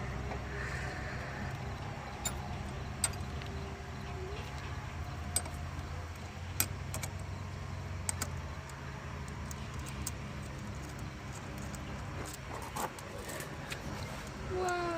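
Scattered small metallic clicks and clinks of hand tools and battery-terminal hardware being handled, a dozen or so sharp ticks spread irregularly over a steady low hum.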